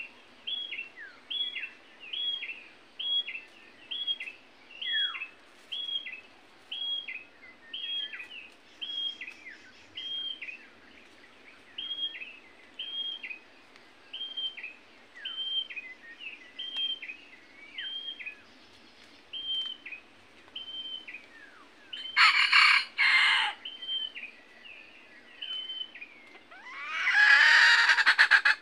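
A red junglefowl rooster crowing loudly near the end, over a steady run of short high chirps repeating about twice a second. Two loud harsh calls come a few seconds before the crow.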